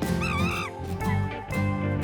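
Background music with a steady beat, over which a short, wavering, high-pitched animal call sounds once near the start.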